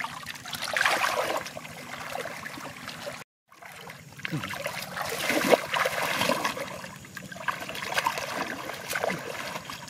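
Hands sloshing and splashing through shallow muddy water while groping in the mud for fish. The sound is uneven and cuts out for a moment about a third of the way in.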